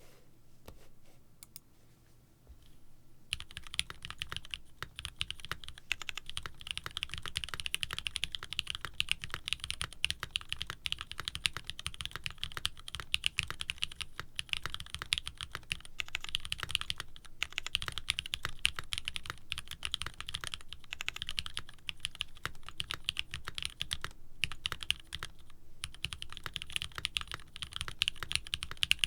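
Steady typing on a mechanical keyboard with retooled Cherry switches on Kailh stems, an aluminium plate and CRP keycaps: a fast run of key clacks that starts about three seconds in, with a couple of short pauses.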